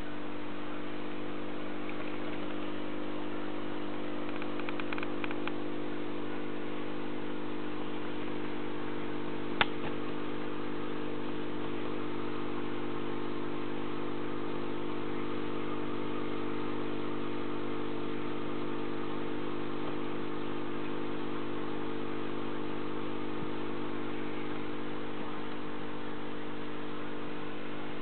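Steady hum of an aquarium air pump with the hiss of bubbles rising from an air stone, and one sharp click about ten seconds in.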